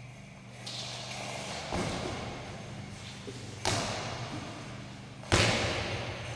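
Three heavy thuds about two seconds apart, the last one the loudest, each echoing through a large sports hall: a goalball striking the court and players dropping to the floor to block it.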